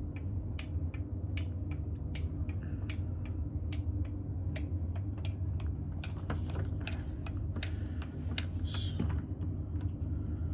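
Light, uneven clicks and taps of a wooden toy being handled, about two to three a second, over a steady low hum, with a short scrape about three-quarters of the way through.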